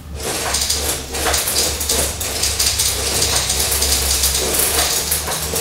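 Beads pouring through a quincunx (Galton board): a dense, continuous rattling patter of many small beads clicking as they fall through the board and pile into the bins.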